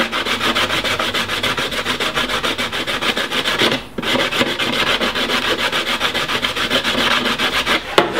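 A sander rasping on the freshly cut edge of a black Lexan body panel, fast, even strokes, stopping briefly about four seconds in and then carrying on.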